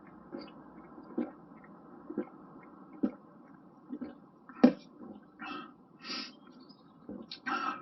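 Close-up mouth sounds of a man drinking 7 Up from a can: a series of gulps and swallows about once a second, with a few short breaths between them.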